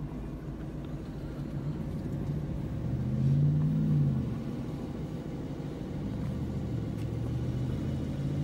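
Lexus LC 500's 5.0-litre V8 idling in park, heard from inside the cabin, with a brief rise and fall in engine pitch about three seconds in.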